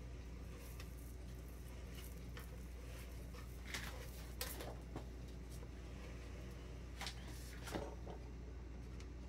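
Plastic cake stencil sheet being peeled and unwrapped from around a frosted cake, giving a few short crinkling rustles. They are loudest about four seconds in and again near seven to eight seconds.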